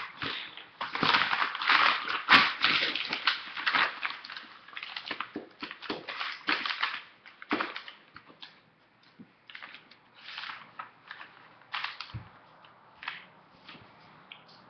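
Paper rustling and crinkling close by as a paper piece is handled and glued onto a paper funnel: irregular crackles, dense for the first several seconds and then sparser.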